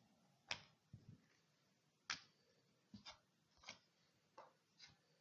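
Near silence with about nine faint, short clicks and taps spread irregularly, from a food container and its lid being handled.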